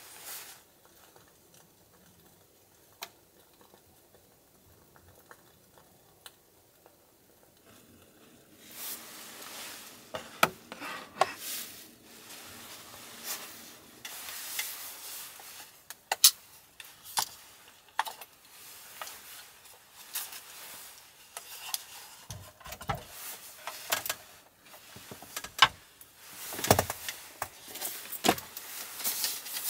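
About nine seconds of near quiet with a few faint ticks, then handling noise: scattered clicks, knocks and rustling as things are moved about in a small space, with a few dull thuds near the end.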